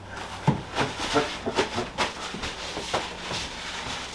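A string of short, irregular knocks and clicks, about eight or nine in all, some louder than others, over a faint steady low hum.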